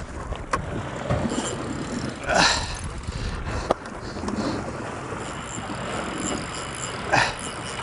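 Open fishing boat at sea under way: a steady low rumble of the boat's engine and wind, with sea wash. Two short splashy bursts come about two and a half and seven seconds in, and sharp little clicks sound twice.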